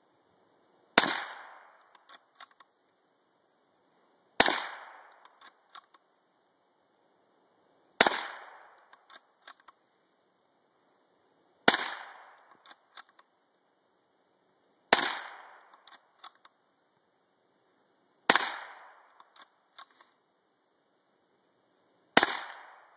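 Seven gunshots fired one at a time, about three and a half seconds apart. Each shot trails off over about a second and is followed by a few faint clicks.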